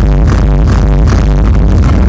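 Loud electronic dance music over a large arena PA, with a pounding kick drum about two beats a second, recorded from the crowd with harsh, distorted sound.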